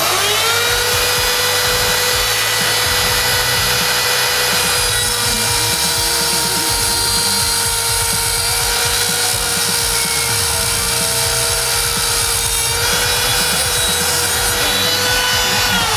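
A small high-speed electric motor spins up, runs with a steady high whine for about sixteen seconds, then winds down.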